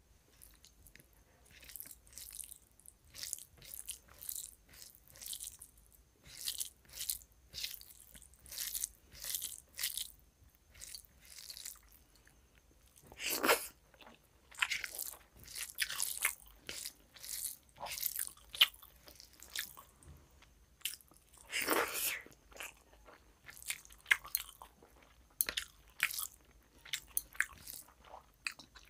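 Close-miked chewing and mouth sounds of a person eating mutton curry and rice by hand. They come in short bursts about once or twice a second, with two louder mouthfuls about a third and three quarters of the way through.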